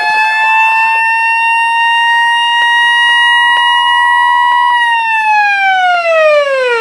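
Warning siren sounding a steady, loud tone, then winding down, falling in pitch over the last two seconds.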